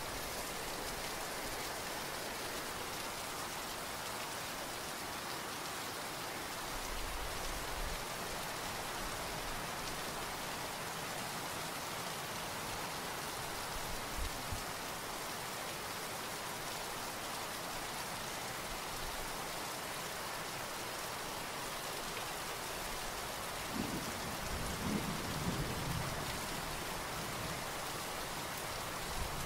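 Steady rain, with low rumbles of thunder rising out of it a few times, the longest near the end.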